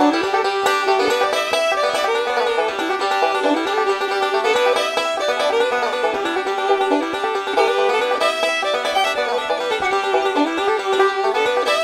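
Background music: an upbeat tune led by a plucked banjo, in a bluegrass style, playing steadily.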